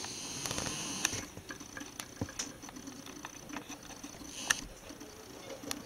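Quiet room tone with scattered faint clicks and ticks.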